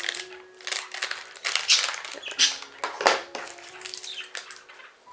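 Plastic foil blind bag being crinkled and torn open by hand, in a run of irregular rustles and rips, the loudest about a second and a half and three seconds in.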